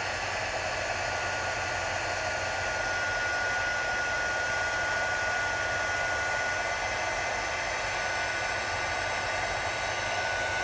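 Handheld electric heat gun running steadily, its fan blowing a rush of hot air with a steady high whine on top, shrinking heat-shrink tubing over soldered motor leads.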